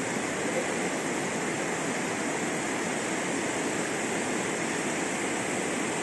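Steady rush of river water tumbling over rocks in small rapids, an even, unbroken noise.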